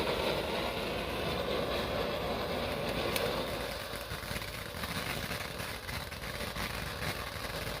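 Ground fountain firework burning with a steady hiss that dies down partway through.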